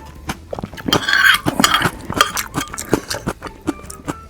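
Utensils clinking and scraping against a dish while eating, with many short clicks and a louder stretch about a second in.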